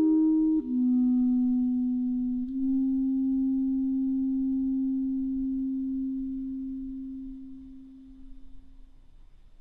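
Solo clarinet playing a slow melody in its low register: two short notes stepping down, then one long low note held for about seven seconds and slowly fading away.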